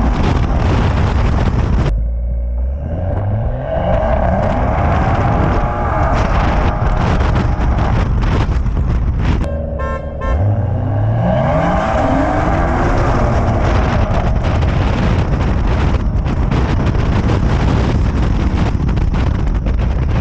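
Car engines accelerating hard, their pitch climbing twice, about two seconds in and again about ten seconds in. Continuous loud traffic noise runs underneath, with car horns tooting.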